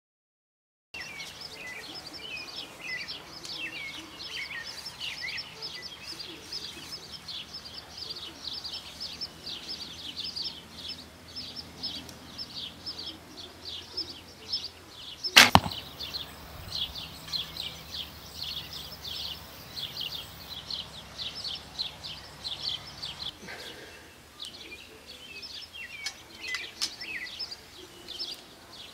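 A single shot from a 40-pound Martin Jaguar take-down recurve bow: one sharp snap of the bowstring as the arrow is loosed, about halfway through. Birds chirp steadily throughout.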